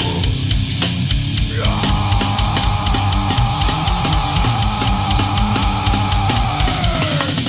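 Death crust metal music: fast, dense drumming under guitars, with a long held note coming in about two seconds in and sliding down just before the end.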